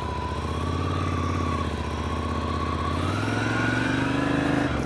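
Ducati Scrambler Desert Sled's air-cooled L-twin engine pulling as the motorcycle accelerates, its pitch climbing gradually, with a brief drop just before the end.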